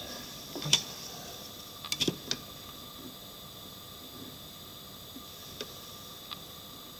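A few light, sharp taps and clicks over a steady hiss: a cluster in the first couple of seconds, then two single taps later on.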